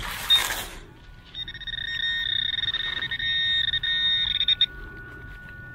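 Handheld metal-detecting pinpointer buzzing in rapid pulses at a high pitch for about three seconds as its probe is held in the dirt of the dug hole, signalling a metal target close by. It stops abruptly, leaving a fainter steady tone, and a brief scuff of dirt and leaves comes at the start.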